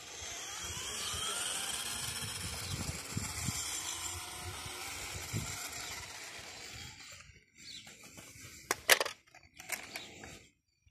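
Vintage toy radio-controlled off-road buggy driving on asphalt: its small electric motor and gears whine, the pitch shifting up and down with speed, over the rattle of its tyres, for about seven seconds before stopping. A couple of sharp knocks follow near the end.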